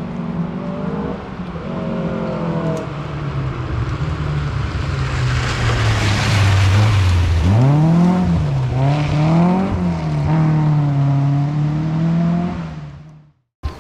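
Rally car driving hard on a stage, its engine running at steady revs, dropping lower, then rising and falling twice quickly before settling. A loud rushing noise swells over it in the middle.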